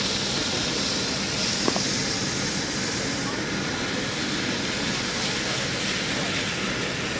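Medical helicopter running on the ground, a steady even rush of turbine and rotor noise. A single faint click about a second and a half in.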